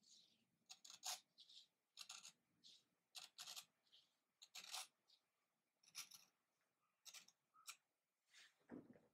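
A paper knife slitting the folded edge of an uncut double-leaf (fukuro-toji) book page. It is a faint series of short, irregular rasping strokes of blade through paper, about one or two a second, with a duller knock near the end.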